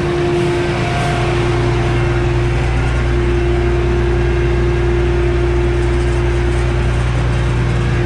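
John Deere S660 combine running at a standstill, heard up close: an even, loud machine drone with a steady whine on top and no change in speed.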